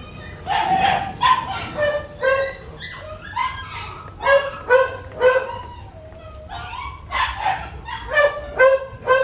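Dogs barking repeatedly in a shelter kennel block, a few barks a second, with a short lull about six seconds in.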